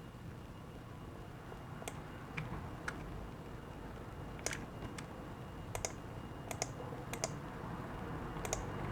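Faint, irregular clicks of a computer mouse and keyboard, about ten of them, starting about two seconds in.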